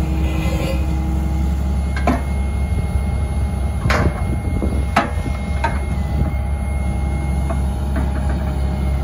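Surface drilling rig's engine running steadily, with a handful of sharp, ringing metal-on-metal clanks as steel drill rods are handled in the rig, about two, four, five and nearly six seconds in.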